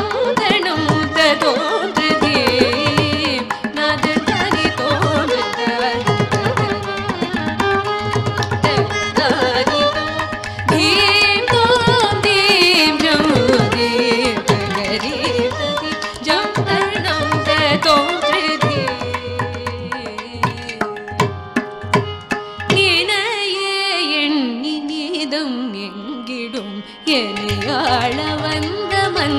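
Carnatic tillana in raga Madhuvanti: a female voice singing with violin, mridangam and ghatam accompanying her. The drums drop out for a few seconds near the end while the melody carries on, then come back in.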